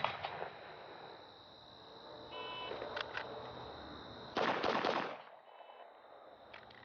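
A shot timer beeps, and about two seconds later a handgun fires three quick shots. A second, fainter timer beep follows: the par-time signal marking the end of the 3-second limit.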